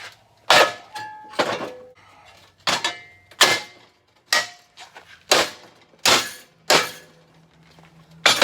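Hammer blows on steel, about ten irregular strikes roughly a second apart, each hit ringing briefly.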